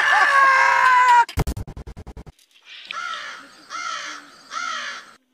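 A man laughing loudly, cut off just over a second in, then a fast run of about ten low thumps, then three harsh bird calls about a second apart.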